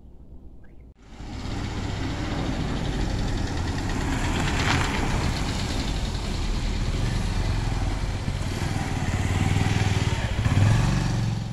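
A vehicle's engine running steadily with road noise, starting about a second in and swelling a little near the end.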